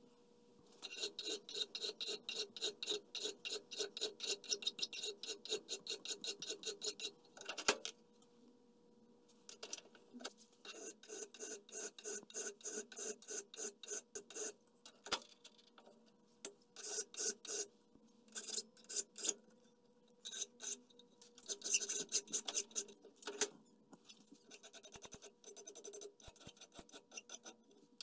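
Flat hand file stroking across a steel locknut clamped in a bench vise, filing its square end. A fast, even run of strokes at about three a second, a break about seven seconds in, then shorter runs of strokes with brief pauses.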